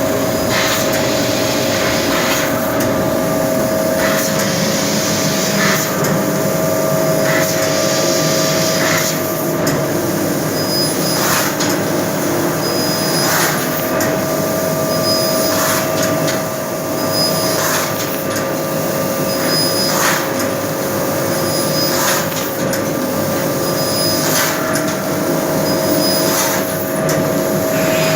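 A 1500 W fiber laser cutting machine running: a steady mechanical hum with one constant tone, and stretches of hiss that start and stop every second or two.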